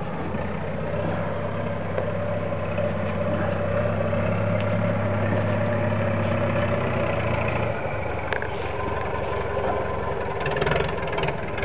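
Motor cruiser's engine idling steadily; its low hum weakens about two-thirds of the way through. A few light clicks and rustles come near the end.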